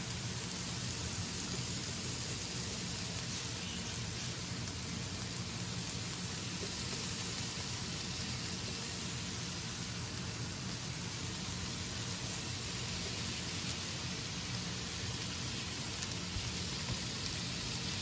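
Chopped meat sizzling steadily as it fries in a hot sauté pan.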